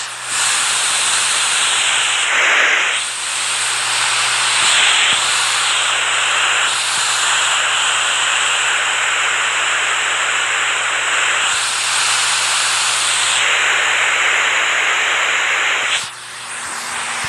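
Rushing water, a loud, dense hiss of spray that shifts in character a few times. About three-quarters of the way through it drops away suddenly and a quieter sound with a low steady hum takes over.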